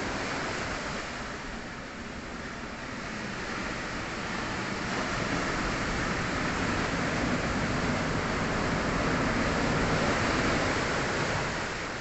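Sea waves washing onto the shore: a continuous rushing surf that dips briefly, then slowly swells to its loudest past the middle and eases off near the end.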